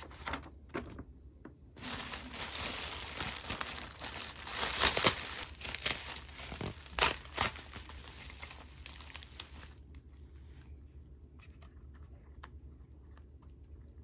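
Bubble wrap being unwrapped by hand, crinkling and crackling densely with a few sharp, louder tearing crackles around the middle. It dies down to faint scattered crackles over the last few seconds.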